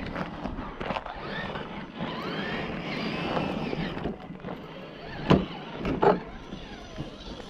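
Electric motor of an RC scale rock crawler whining, rising and falling in pitch with the throttle, then two sharp knocks in the second half.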